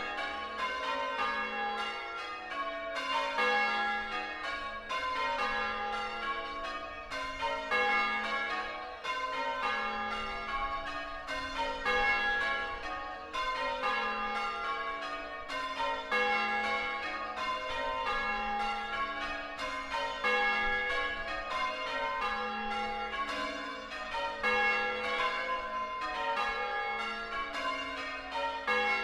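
A ring of six church bells in A-flat, tenor 8-1-26 cwt, rung full-circle in change ringing. The strikes follow one another in an even rhythm, row after row, each bell ringing on under the next.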